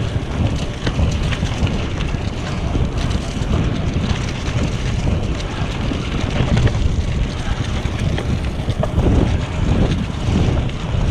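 Wind buffeting a GoPro's microphone on a moving bicycle, a steady low rumble. Under it, a cyclocross bike's tyres roll over a leaf-strewn dirt trail with small scattered ticks.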